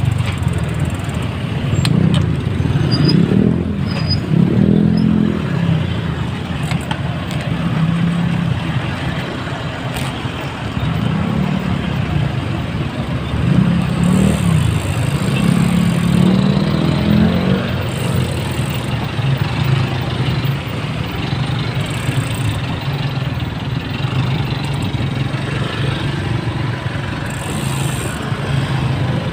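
Traffic close by in slow, dense traffic: motorcycle engines and a heavy truck's engine running at low speed. The engine notes rise and fall several times as the vehicles pull away and slow.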